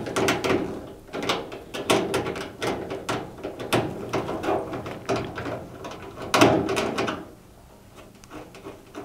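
Hand screwdriver undoing screws in the back panel of a Hoover washing machine's sheet-metal cabinet: a run of sharp clicks and scrapes as the screws are turned out, with one louder clack about six seconds in, then only a few light ticks near the end.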